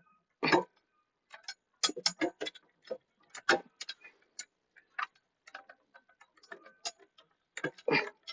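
Irregular small metallic clicks and taps, several a second at times, as long exhaust mounting bolts and exhaust parts are handled and started by hand.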